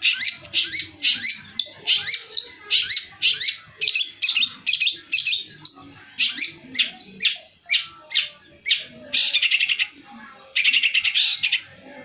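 Long-tailed shrike (cendet) singing: a fast run of loud, sharp chattering notes, about three a second, thinning out midway, then two harsh rattling trills of about a second each near the end.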